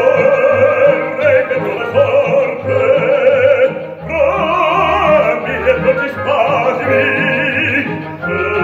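Baritone and soprano singing an operatic duet with orchestral accompaniment, the voices held in long notes with wide vibrato.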